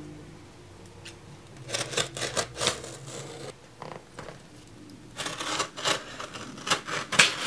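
Cardboard shipping box being handled, scraping and rustling as it is slid and turned and hands rub along its taped sides, in two bouts of quick scrapes, about two seconds in and again from five seconds on.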